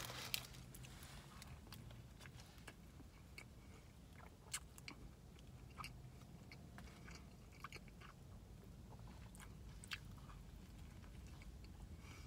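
Faint chewing of a soft breakfast muffin sandwich, beginning with a bite just after the start, with scattered small mouth clicks.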